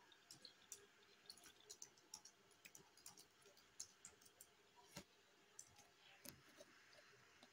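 Faint, irregular clicking of a computer keyboard being typed on and a mouse being clicked, with a slightly stronger click about five seconds in.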